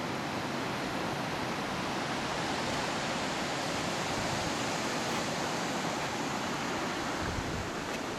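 Steady rush of water pouring through a dam's outlet, an even hiss with no rhythm or tones. A low wind rumble on the microphone starts near the end.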